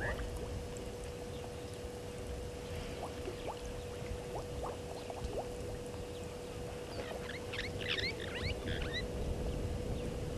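Outdoor bush ambience: a steady low noise with a constant faint hum, and a brief flurry of small bird chirps about seven seconds in.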